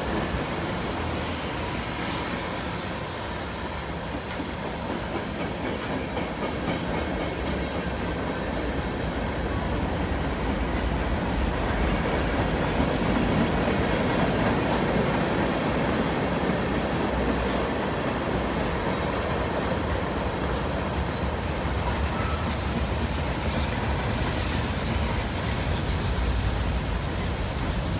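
Freight cars of a long mixed manifest train, tank cars and covered hoppers, rolling past: a steady rumble of steel wheels on rail. A few faint sharp clicks are heard about three-quarters of the way through.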